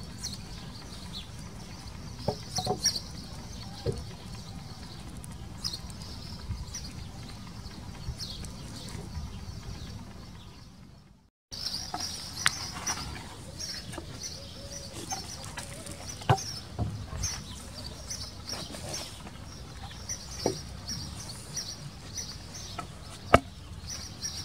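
Birds chirping over steady outdoor background noise, with scattered sharp knocks and taps from wooden planter boards being handled. The sound cuts out to silence for a moment about halfway through.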